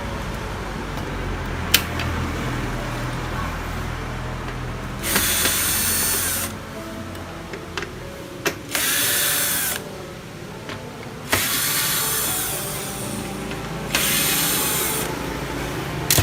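Electric screwdriver running in four short bursts, backing out the screws that hold a TV main board, with a few sharp clicks between the bursts.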